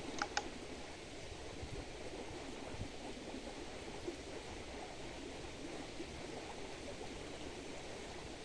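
Two quick sharp clicks a fraction of a second apart just after the start, then a steady rushing background noise.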